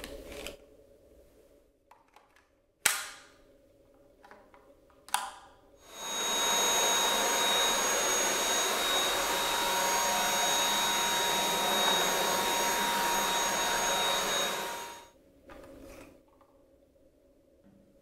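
Dyson V8 cordless stick vacuum running for about nine seconds. Its motor spins up quickly, runs with a steady rush of air and a high whine, then winds down as it is switched off. Before it starts there is a sharp click, then a smaller one, from handling the vacuum's parts.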